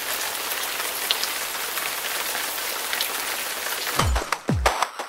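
Steady hiss of heavy rain falling, with fine crackle. About four seconds in, electronic music cuts in with two deep bass hits, each dropping in pitch.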